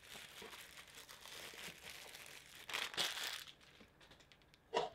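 Thin plastic wrapping crinkling and rustling as it is handled and pulled off a Funko Soda figure, loudest about three seconds in, then stopping. A short knock near the end.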